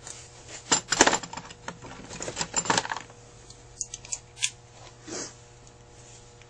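Small metal carburetor parts and tools clinking and rattling as they are handled on the bench: a busy run of clicks in the first three seconds, loudest about a second in, then a few single ticks.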